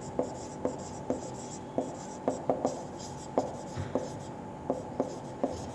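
Marker pen writing on a whiteboard: an irregular run of short scratchy strokes and light taps of the tip on the board.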